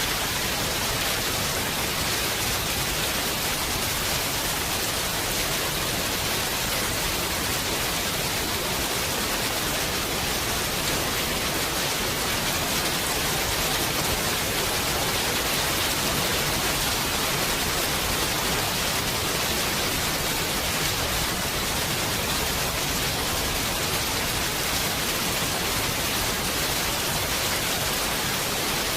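Heavy rain falling steadily, a dense, even hiss with no thunder or let-up.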